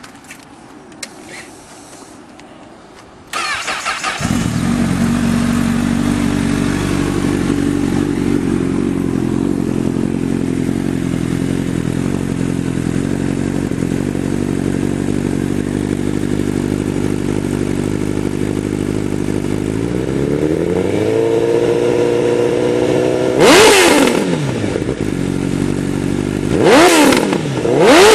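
Honda CBR 1000 inline-four motorcycle engine cranking and starting about three seconds in, then idling steadily. Later its revs rise and hold higher, and near the end the throttle is blipped three times, each a quick rise and fall in pitch.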